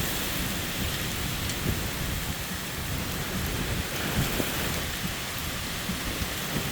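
Thunderstorm downpour mixed with small pea-sized hail, a steady hiss of rain with an occasional faint tick, over a low, gusty rumble.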